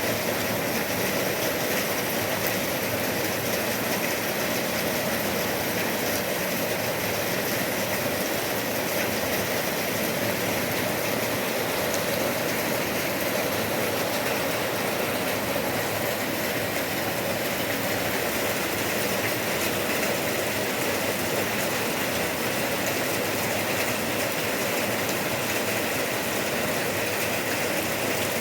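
Steady rain falling: a dense, even hiss with fine patter that holds at the same level throughout.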